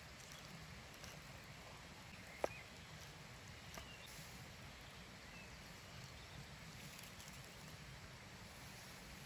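Very quiet outdoor ambience while a knife cuts through a bacon-wrapped meatball on a wooden cutting board. About two and a half seconds in there is one sharp click, the knife knocking against the board, and a smaller tap a second later.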